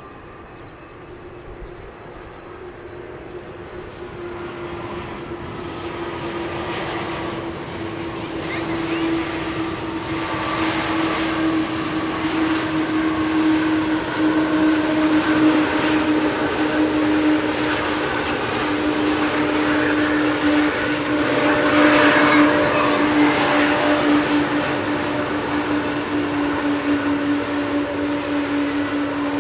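Boeing 777-281 airliner's turbofan engines running with a steady whine as it rolls along the runway, growing louder over the first half as it draws near. The whine sinks slightly in pitch toward the end.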